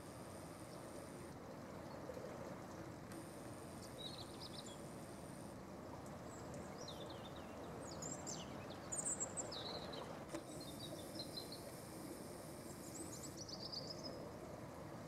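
Small birds chirping in short, high calls, scattered from about a third of the way in and busiest in the middle, over a steady, low outdoor background noise.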